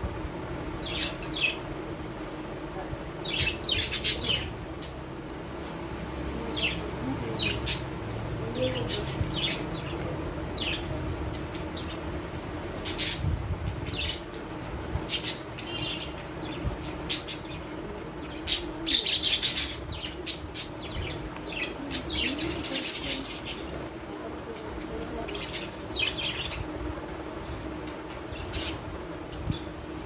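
Small caged pet parrots chirping: short, sharp, high calls scattered throughout, some in quick clusters, over a steady low hum.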